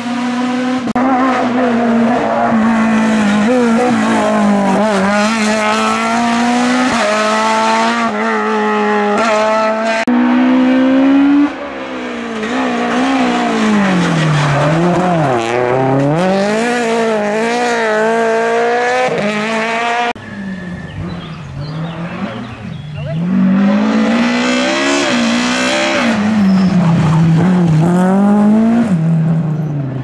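F2000-class front-wheel-drive rally cars racing past one after another, each engine revving hard. The pitch climbs and drops over and over with gear changes and lifts for the bends. The sound switches abruptly from one car to the next a few times.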